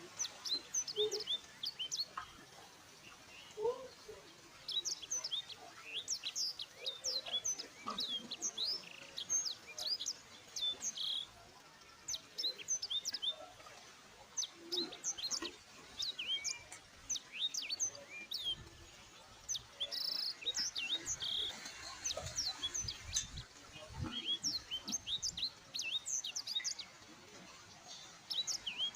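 Small birds chirping: many short, high, quickly falling chirps coming in rapid runs that overlap, with brief lulls between the runs.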